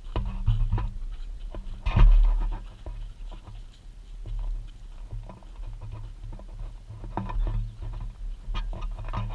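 Large Pakistani bully dogs (Bully Kutta) panting close by, with light steps and clicks on dry soil and a low uneven rumble; a loud bump comes about two seconds in.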